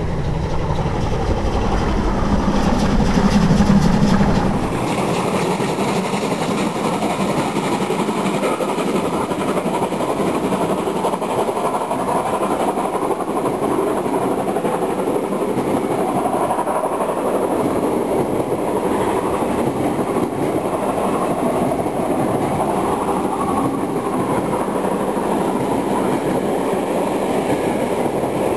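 Steam-hauled train of vintage passenger coaches passing close by: a low rumble that builds to its loudest about three to four seconds in, then changes abruptly to the steady rolling noise of the coaches running past.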